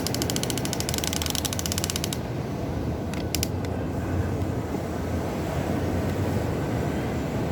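Huina RC excavator's gear drive clicking rapidly and evenly for about two seconds, then a few separate clicks, over a steady low rumble.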